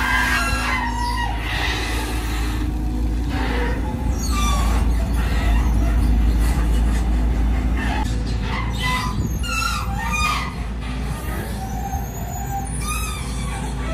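Diesel engine of a Volvo EC210DL long-reach excavator running steadily, with short high chirping calls scattered over it.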